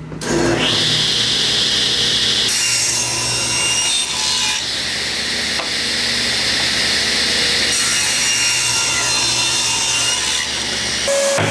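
Table saw ripping a pine board lengthwise, the blade cutting steadily through the wood over the motor's hum. The cut ends near the end, leaving the saw running.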